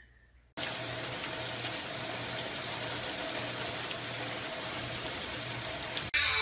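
Steady rain falling on a wet wooden deck: an even hiss of drops that starts suddenly and stops suddenly near the end.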